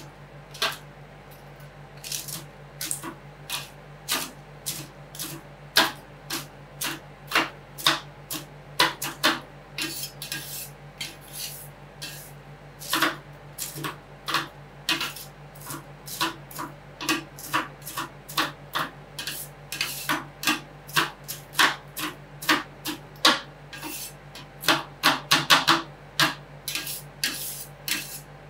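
Metal spatulas chopping and smashing on a steel rolled-ice-cream cold plate: sharp, irregular clacks about two a second, over a steady low hum.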